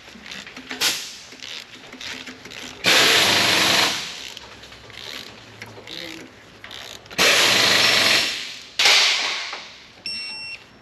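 Socket ratchet clicking as a spark plug is run down and tightened, with three loud rasping runs of about a second each. A short beep sounds near the end.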